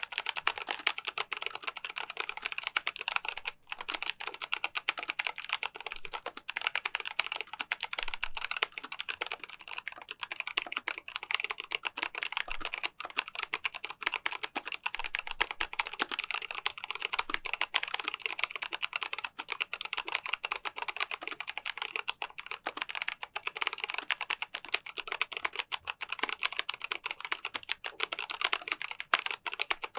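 Fast continuous typing on a mechanical keyboard with MANIC brown (tactile) switches, a dense run of key clicks and clacks with a brief pause about three and a half seconds in.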